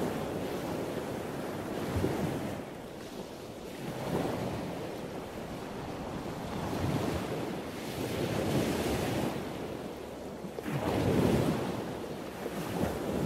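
Sea surf breaking and washing up the beach in repeated surges, with wind blowing across the microphone. The loudest surge comes about eleven seconds in.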